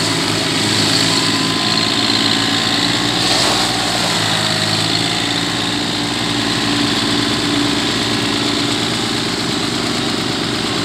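John Deere 4300 compact tractor's three-cylinder diesel engine running steadily at low speed as the tractor drives slowly and turns.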